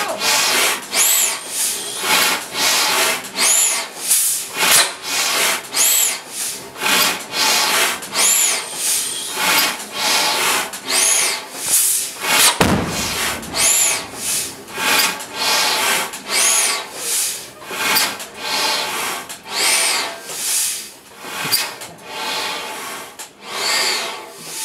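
A 1930s butane-fuelled generator engine running slowly, with a steady rhythmic chuffing beat. A high whistle rises and falls with some of the beats.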